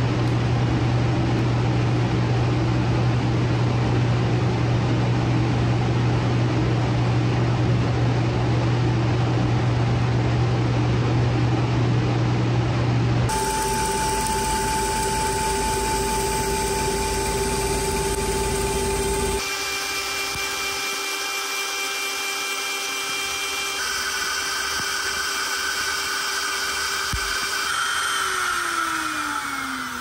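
A steady low machine hum, then a spindle cutter on a cue lathe making its first pass along a pool cue blank: a steady high whine that shifts in pitch about 19 seconds in and glides down near the end as the cutter spins down.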